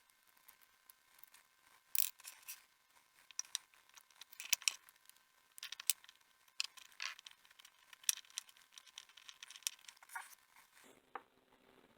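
Small metal and plastic parts of an HO scale model locomotive being handled and worked with small tools during teardown: irregular light clicks, taps and short scratches, the sharpest about two seconds in and around the middle.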